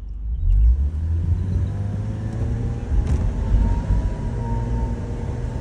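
Road and engine rumble inside a 1991 Toyota Soarer on the move, swelling about half a second in as the car picks up speed, with a faint engine whine rising gently above it.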